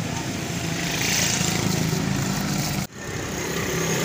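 An engine running steadily, a low hum over a hiss of street noise. The sound drops out briefly just before three seconds in, then picks up again.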